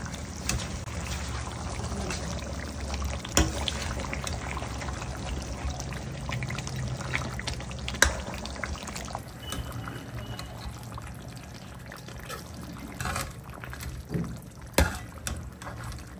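Mutton curry simmering in a kadai, the gravy bubbling steadily, with a few sharp knocks.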